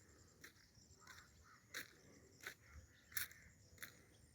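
Faint crunching steps, a short sharp crunch about every two-thirds of a second, like footsteps on gravel or debris.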